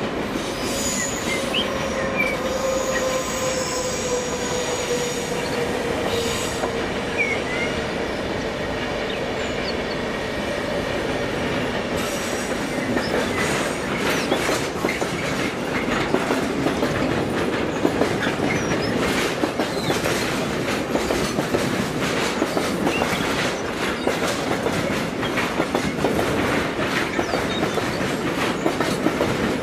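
HO-scale model train running on the layout's track: a whine that slowly falls in pitch over the first several seconds, then rapid, irregular clicking of the wheels over the rail joints.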